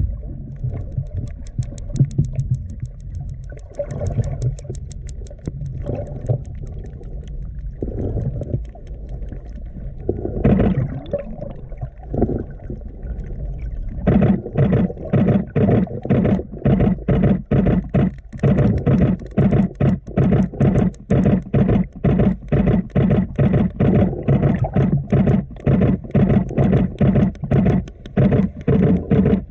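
Female sperm whales clicking underwater, recorded by a GoPro. The first half holds fast trains of faint, crisp clicks over low water noise; about halfway in, loud regular clicks begin, roughly two to three a second.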